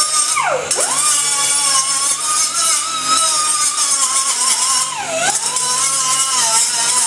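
Angle grinder with a cut-off wheel cutting through a steel pipe: a steady high whine over a hissing grind, the pitch dipping sharply about half a second in and again about five seconds in as the wheel is pressed into the cut and the motor slows under load.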